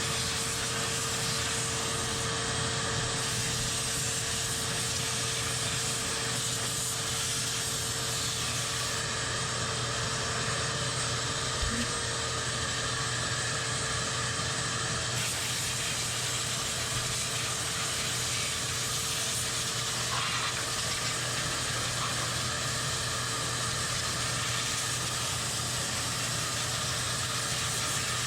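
A shop vacuum and a compressed-air gun running together while cleaning refrigerator condenser coils: a steady hiss of air over a constant motor hum, with one brief knock about halfway through.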